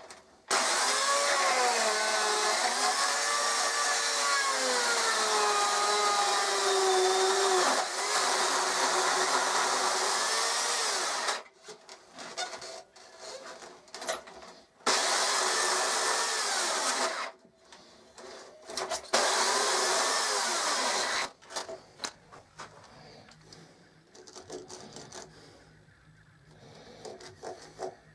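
Dolmar electric chainsaw cutting into a block of wood, its motor pitch dipping and recovering as the chain bites. It runs for about ten seconds, stops, then makes two shorter cuts of about two seconds each, stopping dead each time; near the end only light knocks and handling of the wood remain.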